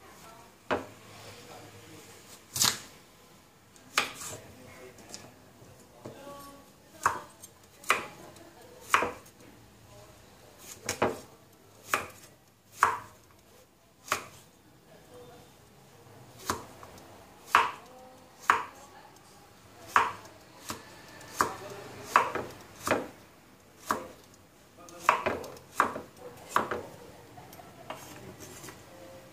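A broad-bladed knife chopping carrot on a thick round wooden chopping block: separate sharp knocks of the blade on the wood, irregular and about one a second, coming closer together near the end.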